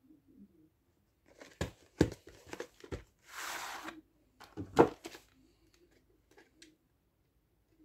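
VHS tapes and their plastic cases being handled: several sharp plastic knocks and clicks, with a short rustling scrape about three and a half seconds in.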